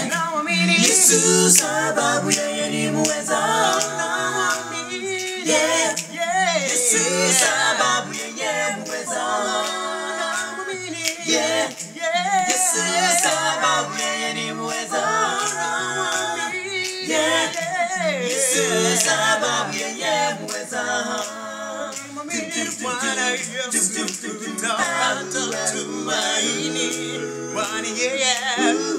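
Five-voice a cappella vocal group singing in harmony, with soprano, tenor, baritone and bass parts; the bass line steps along beneath the upper voices.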